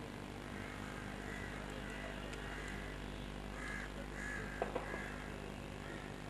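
Birds calling several times, short calls over a steady low hum, with two sharp clicks close together about four and a half seconds in.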